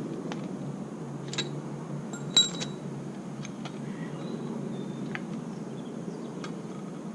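A few light metallic taps and clinks of tools and parts, the loudest a single ringing clink about two and a half seconds in, over a steady low background rumble.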